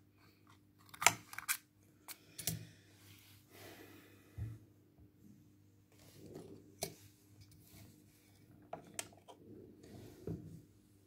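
Small sharp clicks, snaps and light knocks of a Redmi 6A smartphone being taken apart by hand as its motherboard is unclipped from the flex connectors and lifted out of the frame. The loudest snap comes about a second in, with a faint steady hum underneath.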